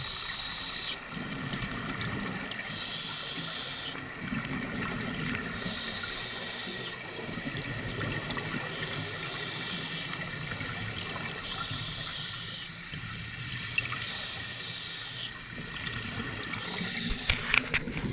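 Scuba breathing through a regulator underwater: each inhale is a hiss, and each exhale is a bubbling rush, a breath every few seconds. A few sharp clicks come near the end.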